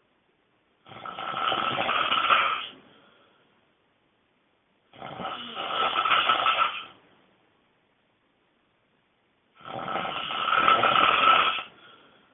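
A person snoring loudly: three long snores about four and a half seconds apart, each lasting about two seconds and building in loudness, with silence between breaths.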